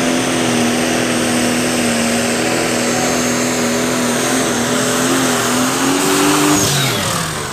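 Pulling tractor's engine running flat out at high, steady revs while dragging the sled, its pitch rising a little about six seconds in, then falling away as the revs drop near the end.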